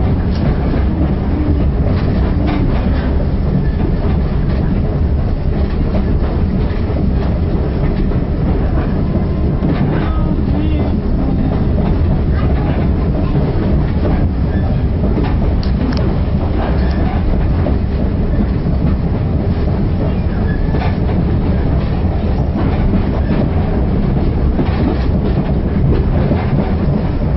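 Heritage railway passenger carriage running along the line at speed, heard from inside: a steady rumble of wheels on rail with irregular clicks and knocks as the wheels cross rail joints.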